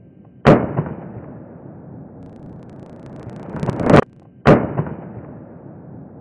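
Two handgun shots about four seconds apart, each a sharp crack that rings away in the open air. Just before the second shot comes a swell that rises and cuts off abruptly, like a shot played backwards.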